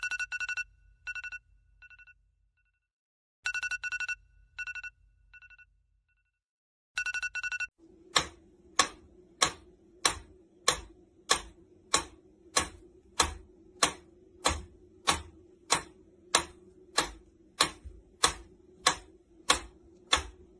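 An electronic ringing tone in three bursts of rapid pulses, like a phone ringing. About eight seconds in it gives way to an even ticking, about one and a half ticks a second, over a steady low hum.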